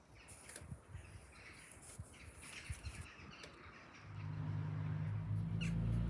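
Garden birds chirping and calling. About four seconds in, a steady low engine rumble comes up and becomes the loudest sound.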